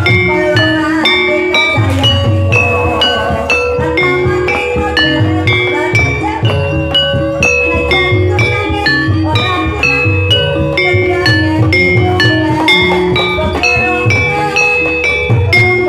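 Javanese gamelan music for an ebeg hobby-horse dance: ringing metallophone notes in a stepping melody over a steady, repeating drum beat, with no break.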